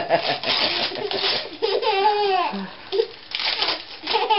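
Wrapping paper crinkling and tearing as a present is ripped open, with a baby laughing in squeals about halfway through and again near the end.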